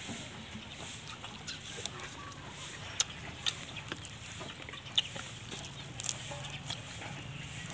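Chickens clucking in the background, with a few sharp clicks and soft rustles as lettuce leaves and grilled intestine are handled by hand; the loudest clicks come about three and five seconds in.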